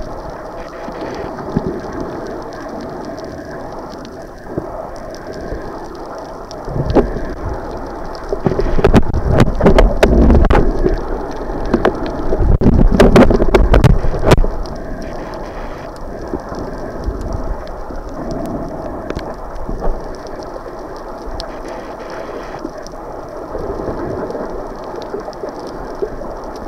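Muffled splashing and churning of water, rising to two heavier rumbling surges around the middle.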